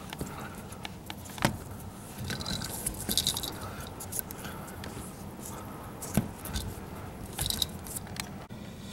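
Electrical tape being wrapped by hand around a wire at a wall outlet box: scattered rustles and scrapes of tape and wire being handled, with a few sharp clicks.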